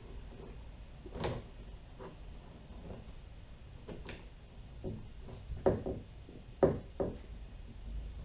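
Scattered light knocks and clicks, about seven in all, from small mounting hardware being handled and set down, the two loudest a little over halfway through.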